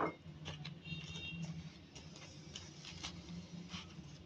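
Faint, irregular clicks and scrapes of a metal spoon against a plastic bowl, stirring flour and gram flour with chicken stock into a thick batter, over a low steady hum.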